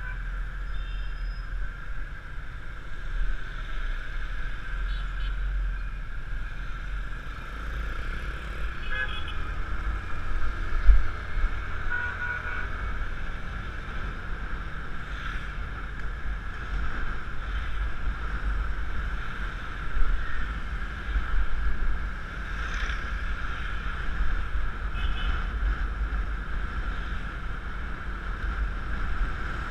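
Riding a Yamaha Mio Classico scooter through city traffic, heard from a helmet-mounted camera: a steady rush of wind and road rumble, with a few short vehicle-horn toots from the surrounding traffic.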